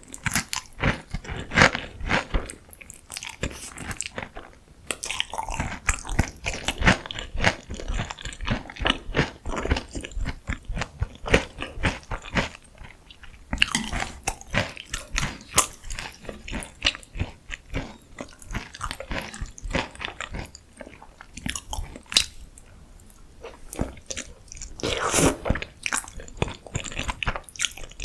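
Close-miked eating sounds: a person biting and chewing crunchy food, with many crisp crackles in runs separated by short pauses.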